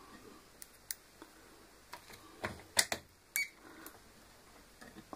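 Scattered light clicks and taps of a tester's metal probe tips against the terminals of a steam iron's heating element, with a cluster of louder clicks a little under three seconds in.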